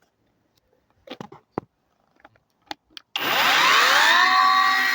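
A few light clicks, then about three seconds in the Powermat 12-inch 21-volt battery chainsaw's electric motor starts, its whine rising quickly in pitch and settling within about a second into a steady high whine as the saw runs.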